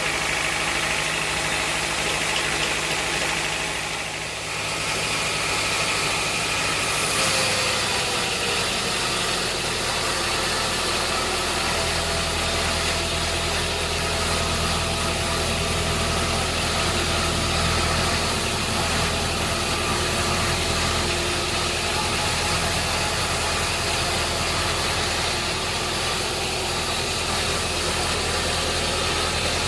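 Engine-driven sawmill machinery running steadily, a continuous engine hum whose low tone shifts about seven seconds in.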